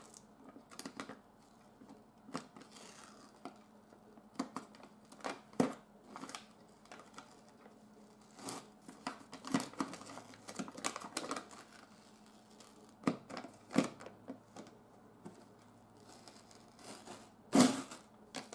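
Adhesive paper being slowly and carefully peeled and torn off a cardboard box: scattered small rips, scratches and rustles, with a louder crinkle near the end.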